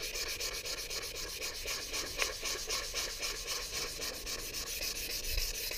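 Wet and dry abrasive paper rubbed by hand along a green-worked ash hammer handle, a steady scratchy rubbing in quick, even strokes, smoothing the roughness left by the draw knife.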